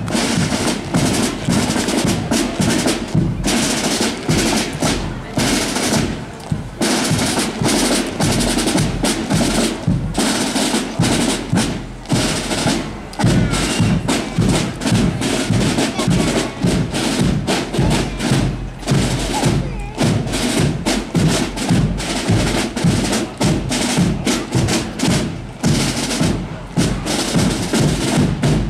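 Marching band drums playing a steady street beat: snare drums with rolls and sharp rim clicks over a bass drum.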